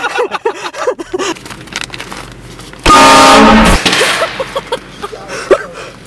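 Train horn fitted in a car blasting once for about a second, a little under three seconds in, with a steady, loud multi-tone sound.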